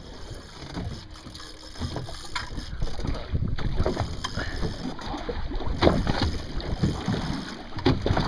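Wind buffeting the microphone, with irregular knocks and bumps scattered through.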